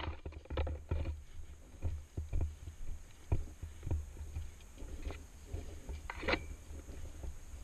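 Footsteps and bumps of the camera rig as a player walks through overgrown brush, with leaves and twigs brushing past; a louder rustle of foliage about six seconds in.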